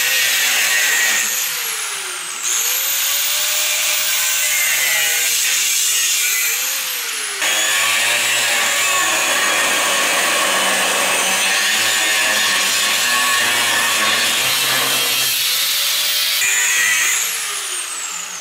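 Angle grinder with a cut-off wheel cutting through a steel truck frame rail. Its whine dips and rises in pitch several times as the disc bites into the metal.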